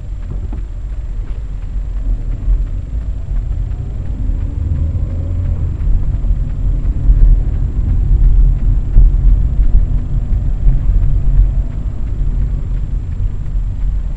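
Low, steady road and engine rumble of a car driving along, heard inside its cabin, growing louder about halfway through.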